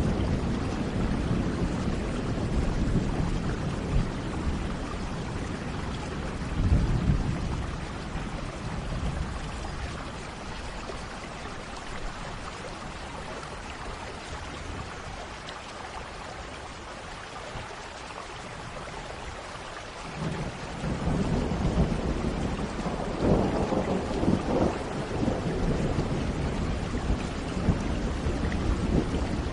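Steady rain with rolling thunder. Deep rumbles fade away over the first half, with a brief swell about seven seconds in, and a new peal of thunder builds about twenty seconds in and rolls on to the end.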